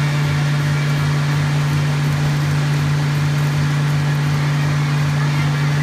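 A motor running steadily, giving a constant hum with a low throb about four times a second.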